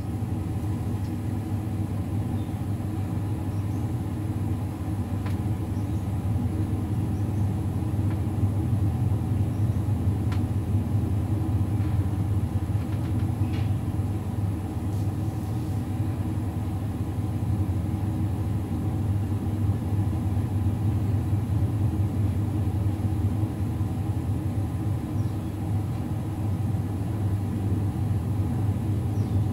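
Steady low mechanical hum of a running motor or appliance, unchanging throughout, with a few faint light clicks.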